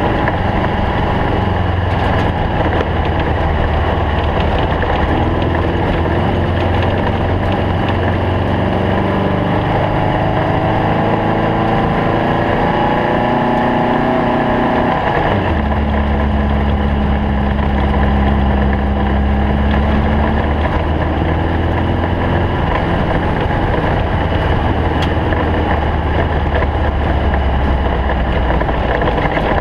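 Stock VW Beetle race car's engine running steadily and loud. Its note changes abruptly about halfway through and then holds steady again.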